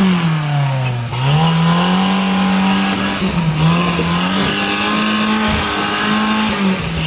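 Stock Suzuki Samurai's small four-cylinder engine revving hard under load. Its pitch drops briefly about a second in and again around the middle, then climbs and holds high as the throttle is worked. The owners say the engine is already due for a rebuild.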